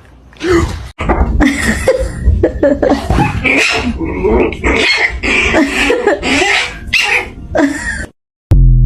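A dog vocalising loudly and close up in a long unbroken run of shifting, voice-like grumbles and moans. A short thump comes near the end.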